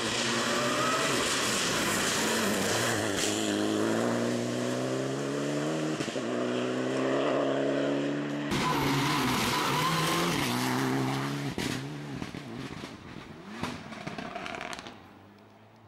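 Ford Fiesta R2 rally car engine revving hard at speed, its pitch climbing and dropping again and again with the gear changes. About eight and a half seconds in the sound cuts abruptly to another pass of the same engine, which then fades away toward the end.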